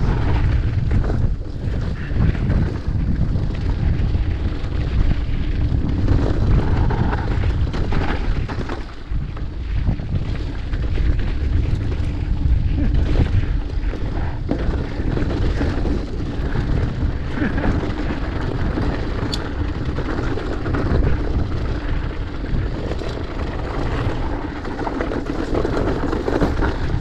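Wind buffeting the microphone over the steady rumble of a mountain bike's tyres rolling fast down a dirt singletrack trail.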